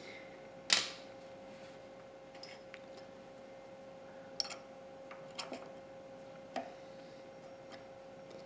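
A few light metallic clicks and clinks from tools and parts being handled on the machine, the sharpest about a second in, over a faint steady hum.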